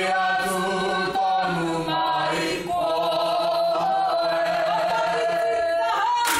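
Group of Māori performers chanting in unison in long held notes, with a short break partway through and the pitch rising near the end.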